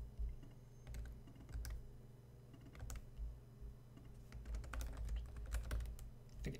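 Typing on a computer keyboard: scattered keystrokes, sparse at first, then a quicker run of keys in the last couple of seconds.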